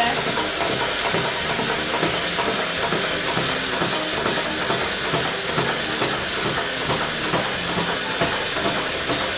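Battery-powered toy crawling hand's motor and plastic gears running steadily as it walks its fingers across a wooden tabletop.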